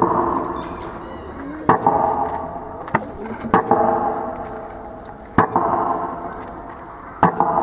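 Slow metronome beats marking a minute of silence: single sharp knocks about two seconds apart, each followed by a fading ring.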